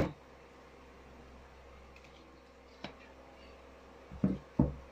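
Faint steady low hum, with a click at the start and two knocks near the end as a flyback transformer is handled on a tabletop.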